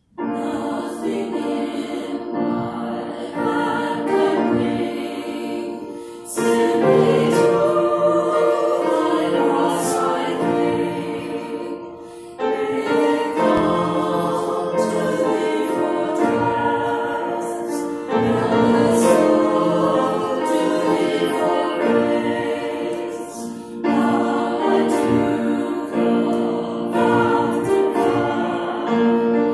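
A small mixed group of singers, men and women, sings a hymn in harmony to grand piano accompaniment. The music starts suddenly after a near-silent pause and moves in phrases of about six seconds, with a short dip for breath between them.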